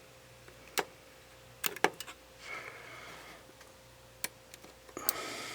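Faint, scattered small clicks and taps of a small tool against the internal parts of a Nikon D5500 camera as a ribbon cable is worked into its connector: a single tick, then a sharper close pair about two seconds in, and a few lighter ones later.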